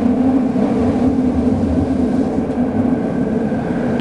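Linear-motor subway train of the Nanakuma Line running through a tunnel, heard from inside the passenger car: a steady, loud rumble with a low hum.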